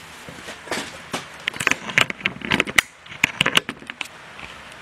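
A quick irregular string of light clicks and knocks, densest in the middle of the stretch: small objects being handled and clattering.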